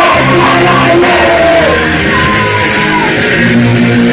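Live punk rock band playing loud, with shouted singing over the full band.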